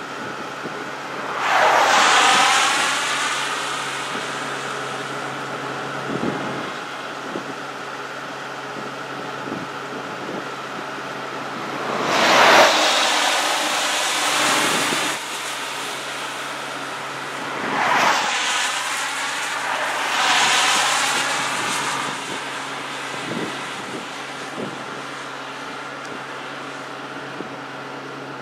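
Cars passing close by on a two-lane road, each a rush of tyre and engine noise that swells and fades as it goes past. There are four pass-bys: one about two seconds in, one near the middle, and two close together later on.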